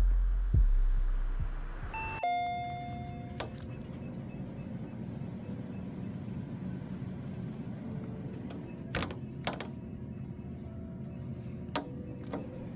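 A deep throbbing rumble with low thuds fades out. About two seconds in, a shop-door entry chime rings. A steady low hum follows, with a few short clicks.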